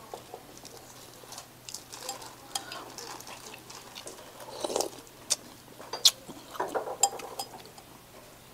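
Metal spoon and chopsticks clicking against a ceramic noodle bowl, with the chewing and mouth sounds of eating noodles, picked up close on a lapel microphone. The sharpest clicks come about five and six seconds in.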